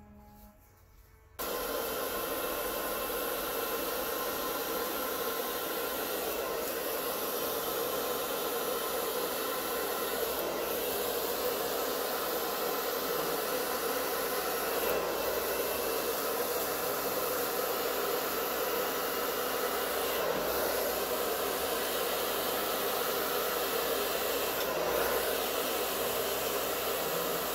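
Handheld hair dryer switched on about a second and a half in, then running steadily as it blows air.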